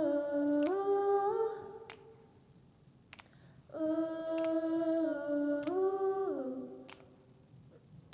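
Unaccompanied voices humming held chords in harmony, in two long phrases with a pause between. A sharp click about every second and a quarter keeps time.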